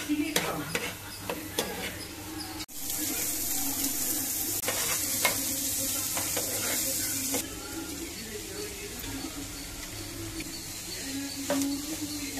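Chopped onions, garlic and green chillies sizzling in oil in a frying pan as a metal ladle stirs them. The sizzle starts abruptly about three seconds in and is loudest until about seven seconds in. Before it, a metal ladle clicks a few times against a pan.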